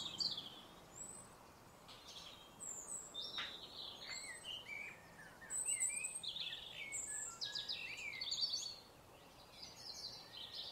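Woodland songbirds singing and calling: several birds with overlapping chirps, trills and short whistled phrases.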